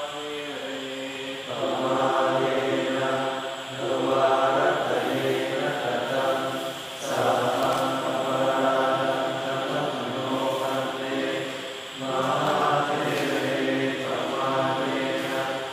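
A group of Theravada Buddhist monks chanting together in phrases a few seconds long, with short breaks between, as part of the formal paying of respects to their teacher.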